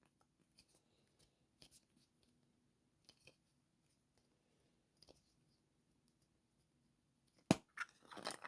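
Faint handling and rustling of a surprise egg being opened, with a sharp click about seven and a half seconds in followed by a few smaller clicks.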